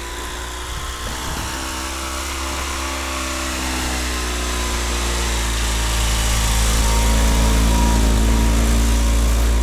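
Engine of a homemade all-terrain vehicle on big low-pressure tyres, running steadily as it drives up through snow and passes close by, growing louder throughout.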